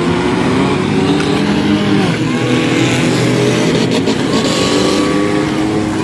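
Many demolition derby cars running at once, their engines revving up and down over one another as the cars ram and push each other.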